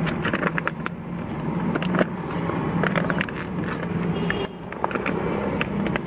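Foil-lined plastic coffee bean bag crinkling and crackling as it is pulled open by hand, in many small irregular clicks. A steady low hum runs underneath.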